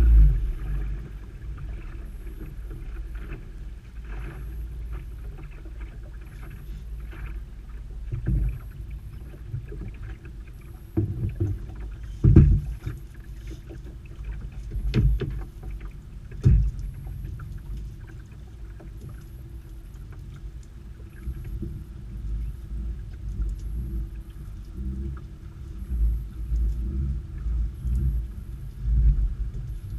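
Small open fishing boat at sea with a low steady rumble of wind and water against the hull. A few sharp knocks on the boat are heard as a weed-covered buoy rope is hauled aboard with a wooden boathook.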